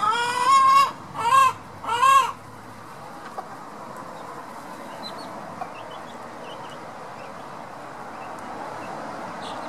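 A chicken calls three times in the first couple of seconds: one long rising call, then two shorter rise-and-fall calls. A few faint high peeps follow, over steady low background noise.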